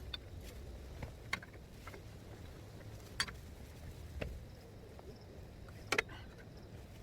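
A handful of short, sharp clicks and knocks, a second or two apart, over a low steady hum.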